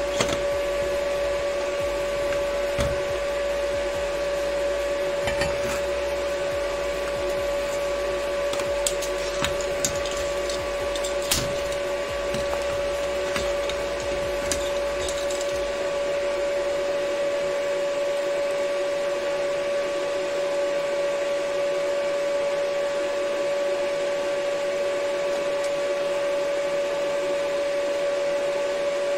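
Steel parts of a motorcycle frame and central stand being handled and fitted on a sheet-metal workbench and in a vise, giving scattered metallic clicks and knocks in the first half. Throughout, a steady machine hum of constant pitch sounds.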